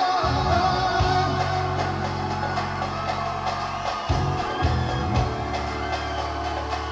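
Music with singing over long held bass notes.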